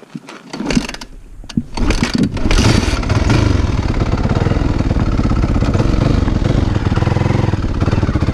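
Motorcycle engine starting about half a second in, with a few clicks, then running loudly and steadily with a rapid even firing beat from about two seconds in.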